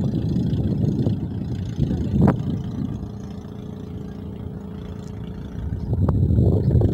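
Low rumble of a cargo ship's engine with wind buffeting the microphone. It eases in the middle, leaving a faint steady hum, and swells again near the end. One sharp knock sounds a little after two seconds in.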